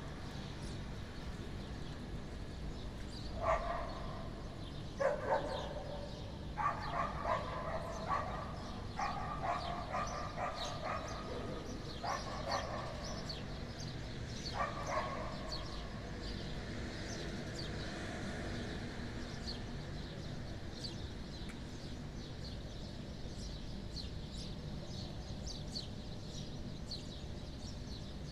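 Dogs barking in repeated bouts, strongest in the first half, over a steady low outdoor rumble with many short high chirps.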